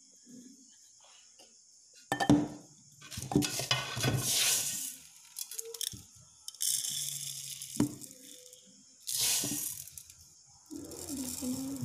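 Dry kitchen handling noises: a mixer-grinder jar clinking and scraping against a glass bowl as ground roasted rice powder is tipped out, and roasted rice grains rattling into the jar. The sounds come as irregular clinks and rustles, starting about two seconds in.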